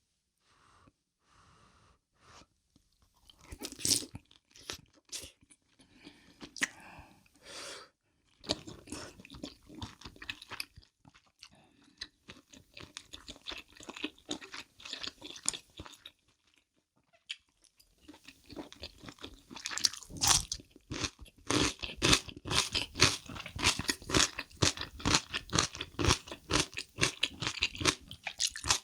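Crunchy kimchi being chewed close to the microphone. Sparser, quieter chewing and mouth sounds come first; about two-thirds of the way in, a dense run of rapid, loud crunching begins.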